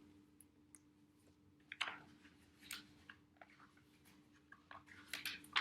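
Faint scattered clicks and rustles of a picture book being opened and its pages handled, with a steady low hum underneath.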